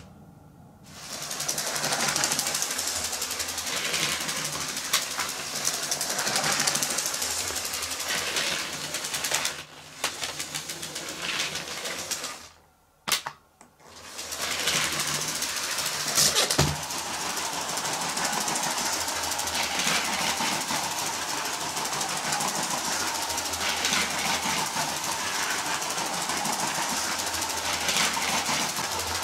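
LEGO 7740 Inter-City train's 12-volt motor locomotive running on grey plastic track, a steady whirring rattle of motor and wheels. It drops out briefly twice, just after the start and about halfway, and there is a sharp click about two-thirds of the way through.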